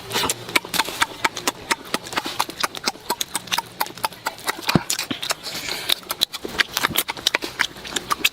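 Someone eating pork ribs: wet smacking and crunchy chewing, heard as quick, irregular clicks several times a second.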